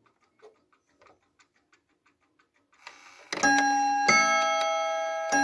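Faint ticking of a Vedette Transistor ATO-MAT wall clock's battery movement. About three seconds in, the strike begins: hammers hit the clock's two chime rods alternately in a bim-bam pattern, each stroke ringing on, with about three strokes heard.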